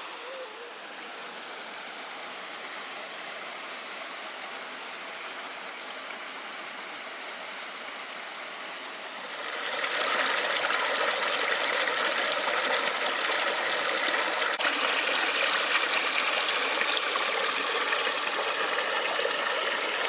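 Rushing water of a forest creek and waterfall, a steady hiss that gets clearly louder about halfway through.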